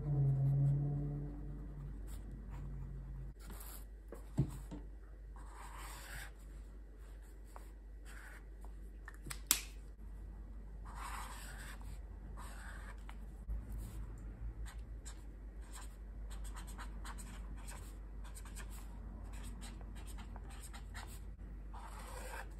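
Pen and felt-tip marker nibs stroking across notebook paper: a series of scratchy swishes as lines and swatches are drawn, with two sharp clicks, one about four seconds in and one near ten seconds. A low humming tone fades out in the first two seconds.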